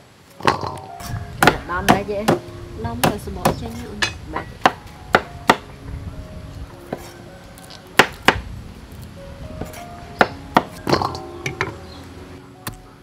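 Kitchen knife chopping vegetables on a wooden chopping board: a run of irregular sharp chops, one or two a second.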